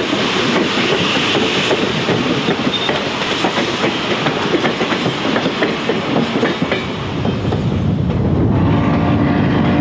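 Steam-hauled passenger cars passing close by, wheels clicking over the rail joints with a hiss of steam. About seven seconds in the sound turns steadier, with a low hum under the train's running.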